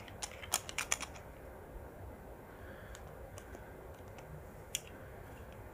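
Light plastic clicks and taps from a clear plastic memory-card case being handled and opened to take out a Sony XQD card: several quick clicks in the first second, then a few scattered single clicks.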